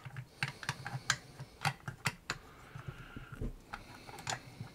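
Irregular small clicks and taps of a 35mm film cassette being worked into the film chamber of a Kodak Retina Automatic II: a fiddly fit that needs the cassette exactly flush.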